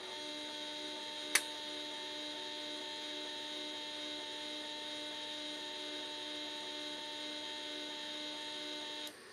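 Repaired Siemens Simoreg DC drive running on test: a steady electrical hum with a high whine, broken by one sharp click about a second and a half in. The hum cuts off suddenly near the end as the drive stops.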